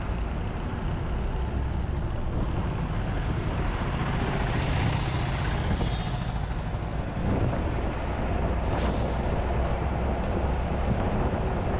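A moving bus heard from its front seats: a steady engine rumble with road and wind noise, and a brief hiss about nine seconds in.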